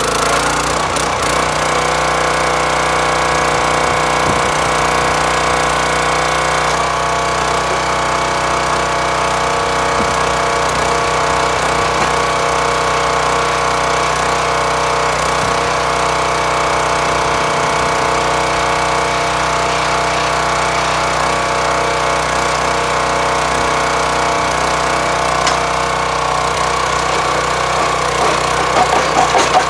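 Hydraulic log splitter's engine running steadily with many steady tones, its note shifting about seven seconds in. A brief rapid pulsing near the end.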